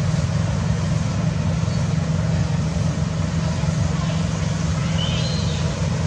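Steady low rumble of a running motor vehicle engine, with a few faint high chirps about five seconds in.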